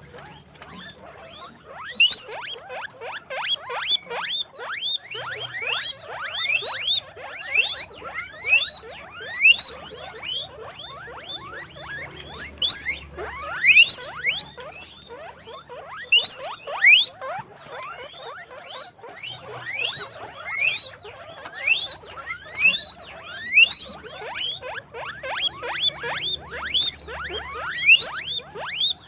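Guinea pigs squeaking over and over: short, rising, whistle-like squeaks, several a second and often overlapping. A faint steady high-pitched tone runs behind them.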